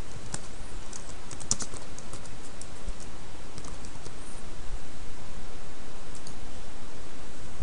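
Typing on a laptop keyboard: a quick run of key clicks in the first half, then a couple more later on, over a steady background hiss.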